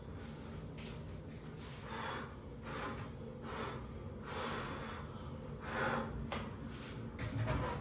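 Cleaning in a small tiled bathroom: short, irregular swishing strokes of a cloth wiping surfaces, about eight in a few seconds.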